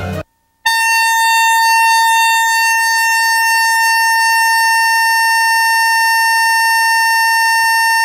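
A single steady high-pitched electronic tone, like a broadcast test tone, starts about half a second in and holds at one unchanging pitch and loudness for about seven and a half seconds before cutting off abruptly. Music cuts off at the very start, just before the tone.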